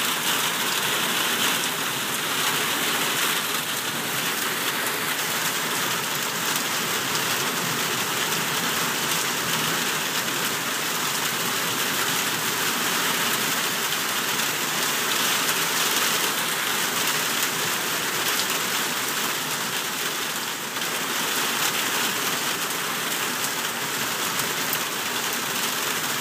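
Heavy rain pouring steadily onto waterlogged ground and pavement.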